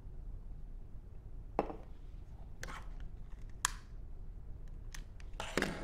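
A few faint, sharp clicks and taps, spaced about a second apart: a lighter being worked to light a long stick.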